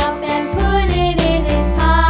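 Upbeat children's background music with a steady beat.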